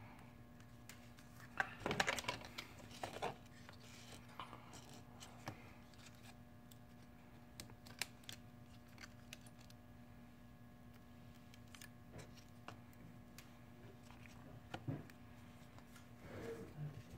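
Scattered light clicks and taps of small phone parts and repair tools being handled, with a cluster of louder rustling clicks about two seconds in and another near the end, over a faint steady hum.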